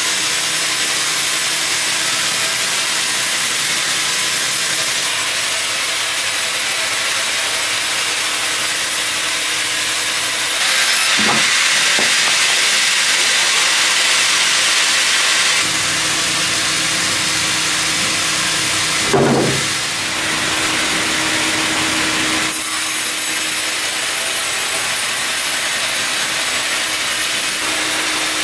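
Sawmill band saw headrig cutting a large log on its carriage: a steady rushing noise of the blade through the wood. The sound changes abruptly a few times, louder and brighter for several seconds near the middle, and a single thump comes a few seconds after that.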